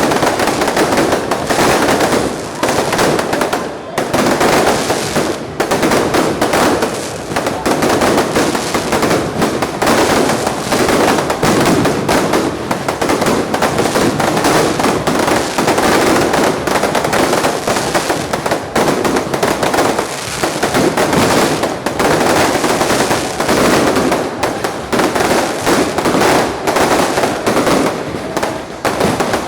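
Fireworks going off in a dense, unbroken crackle of rapid bangs and pops, loud throughout.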